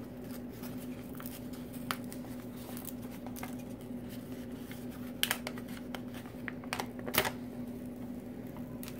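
A rolled diamond-painting canvas being unrolled by hand, its plastic cover film and paper crinkling, with a few sharper crackles about five and seven seconds in. A steady low hum runs underneath.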